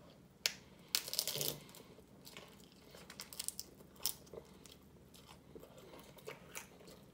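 Crunching bite into a hard corn taco shell, with a loud crackling crunch about a second in, followed by a run of smaller crunchy chewing clicks.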